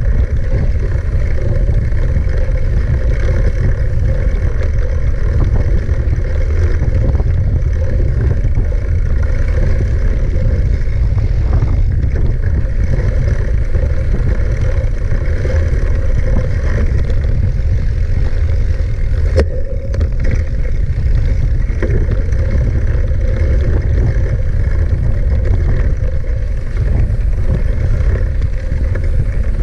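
Wind and ride noise on the microphone of a camera carried on a moving mountain bike: a steady, heavy, low rumble, with one sharp knock about twenty seconds in.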